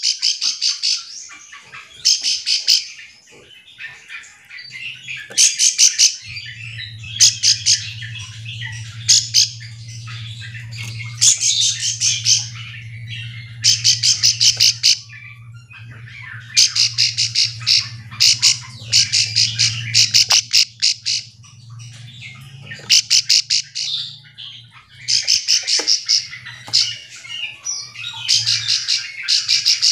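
Prinia (ciblek sawah) calling in repeated short bursts of fast, high, rattling notes, a burst every second or two. A steady low hum runs under most of it.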